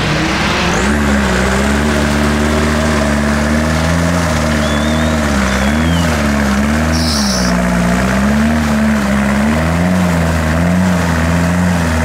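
Off-road 4x4's engine revving, its pitch rising and falling about once a second as it is worked hard to climb out of a mud pit, over a steady low drone.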